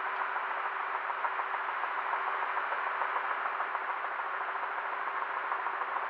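Helicopter in flight heard from inside the cabin: a steady rushing noise of engine and rotor with a faint steady tone beneath, unchanging throughout.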